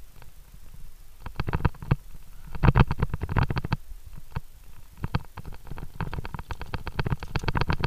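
Via ferrata climbing gear, carabiners and lanyard, clinking and rattling against the iron rungs and rock in quick bursts of clicks, with low bumps as the climber moves.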